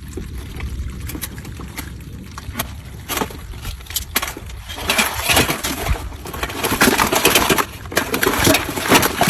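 Irregular splashing and knocking in shallow water, with many sharp clicks, getting louder about five seconds in.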